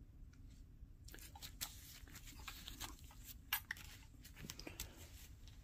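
Faint handling noise: irregular light clicks and crackles, some a little louder near the middle, over a low background.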